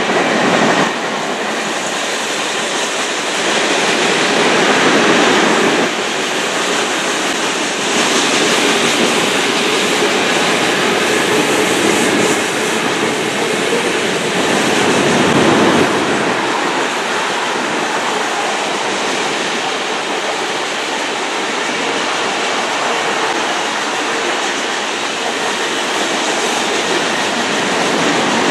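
Freight cars of a manifest train rolling past: a steady rush and rattle of steel wheels on rail that swells and eases a few times as auto racks, tank cars and boxcars go by.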